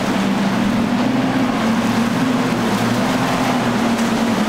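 Quad outboard engines on a large sportfishing boat running hard under throttle, a steady engine hum that wavers slightly in pitch, over the rush of churning water and spray around the hull.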